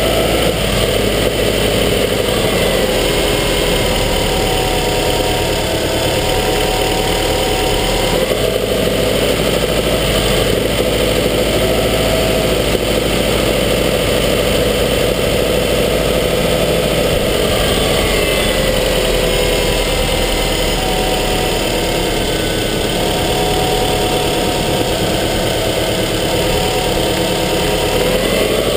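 Subaru Forester XT's turbocharged flat-four engine running, heard up close from inside the engine bay: a loud, steady sound whose pitch sags and rises gently a few times, notably about eight seconds in and again around eighteen to twenty seconds.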